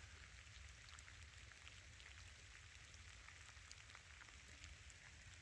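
Faint steady rain falling through forest, with scattered drops ticking close by.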